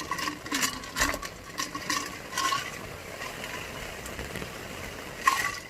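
Quick light clinks against a metal cooking pot, each ringing briefly, as ice is handled for cold ramen. They thin out after about two and a half seconds, and a fresh cluster comes near the end.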